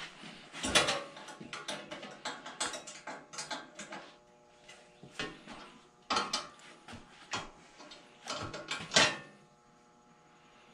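Ratchet wrench clicking in short runs, with metal clinks, as a fastener on a Delta 14-inch bandsaw is turned. The clicking stops about nine seconds in.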